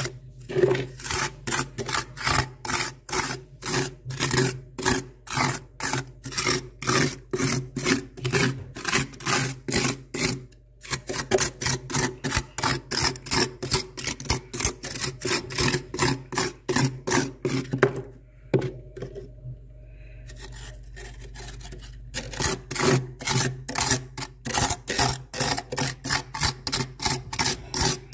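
A hand scraping thick frost from the inside of a freezer compartment. The rasping strokes come quickly, about three a second, with a short break about ten seconds in and a longer lull from about 18 to 22 seconds in.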